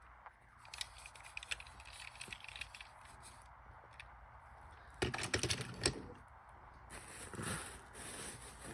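Small plastic clicks and rattles of toy trains being handled, with a cluster of louder knocks about five seconds in.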